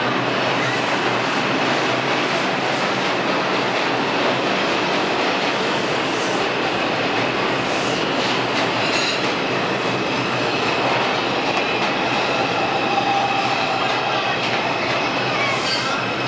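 New York City Subway R142 trains running through the station at platform level, a steady rumble of steel wheels on rail. High wheel squeal joins in from about halfway.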